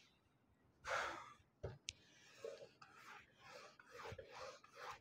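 A felt whiteboard duster wiping across a whiteboard in quick back-and-forth strokes, about three a second, from about three seconds in. Before that there is a short breathy rush and a couple of sharp clicks.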